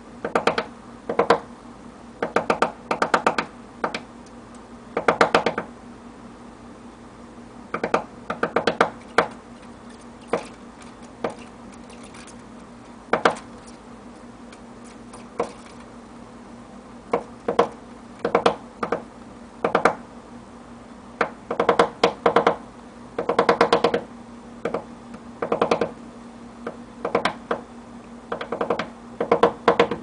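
Downy woodpecker pecking into a mud-dauber nest's dried mud casing to get at the larvae: irregular bursts of rapid sharp taps with short pauses between.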